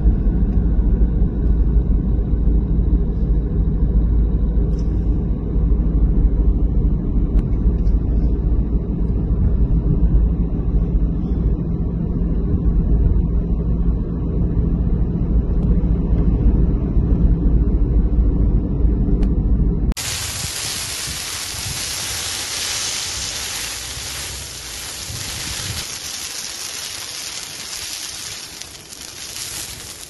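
Heavy low rumble of wind buffeting a phone microphone for about twenty seconds. It then changes abruptly to a steady hiss with crackling from burning brush, growing quieter near the end.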